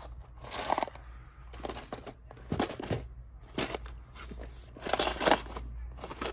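Small boxed lock hardware being handled and moved around: irregular clinks of metal and rustling of packaging, a scrape or click every half second or so.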